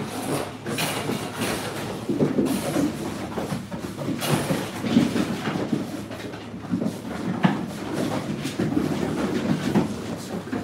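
A litter of bulldog puppies scrambling and play-fighting on a plywood floor: a constant clatter of claws and paws on the bare wood, full of quick clicks and knocks.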